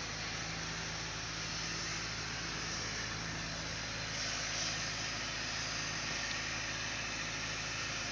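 Diesel engine of a hydra crane running steadily while it holds a concrete mixer on its hook, under a steady hiss.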